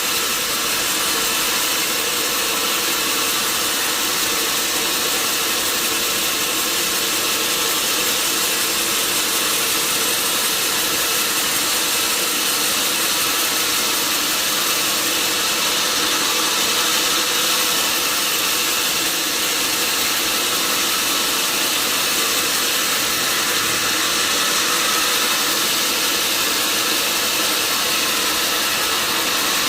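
Sawmill log saw running steadily: a constant mechanical hum under a strong, even hiss, with no breaks or changes.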